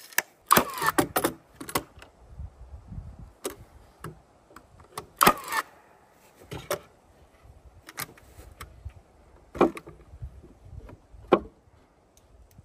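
Irregular knocks, clinks and clatters of hand work with boards and tools, with short clattering clusters about half a second in and about five seconds in, and single sharp knocks near the end.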